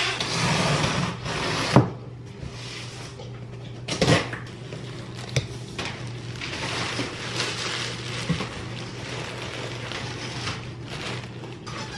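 A package being unpacked: rustling and crinkling of plastic-wrapped items and cardboard as they are lifted out of the box, with a few sharp knocks as things are set down on the counter.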